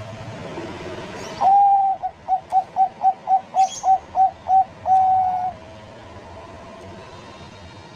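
Bangkok-type zebra dove (perkutut) cooing: one held note about a second and a half in, a quick run of about nine short coos, then a second held note, all on much the same pitch.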